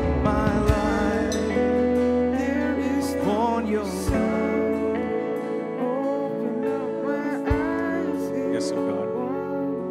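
Live worship band playing a slow, soft song: sustained keyboard chords over electric guitar and bass, with a voice singing softly now and then and a few light cymbal and drum touches.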